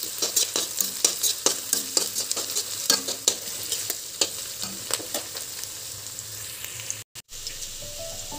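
Chopped onions and green chillies sizzling in hot oil in a kadai, with a spatula scraping and clicking against the pan as they are stirred, fried until they brown. The stirring clicks thin out after about five seconds, leaving the steady sizzle, which cuts out briefly near the end.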